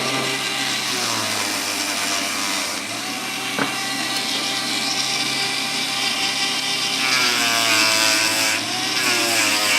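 Dremel rotary tool running steadily with a cloth polishing wheel buffing a silver pocket watch case with red compound. Its whine shifts in pitch a few times as the work goes on.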